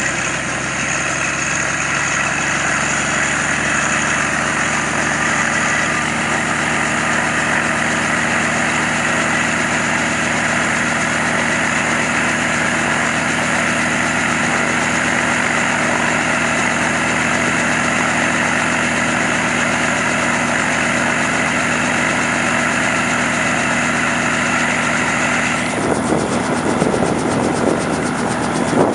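Helicopter running steadily, its turbine whine and rotor noise continuous; about three seconds before the end the sound turns rougher and more buffeting.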